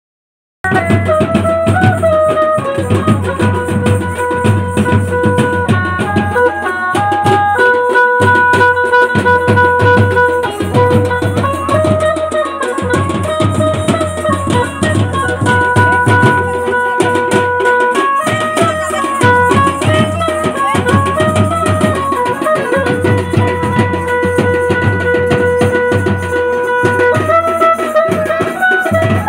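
Live Indian folk music: a melody of long, steady held notes over busy drum and hand-drum beats. It starts after a brief silence about half a second in.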